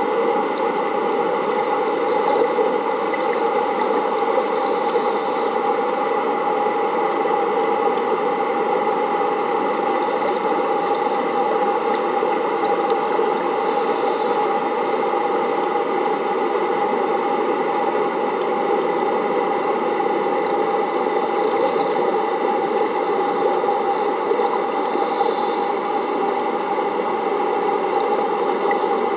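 Steady underwater drone of the plant's running intake pumps, with a fixed hum heard through the water. Three brief high hisses come about ten seconds apart.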